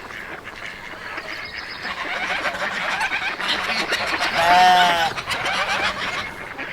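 A flock of farm birds calling over one another, with one loud honking call about four and a half seconds in.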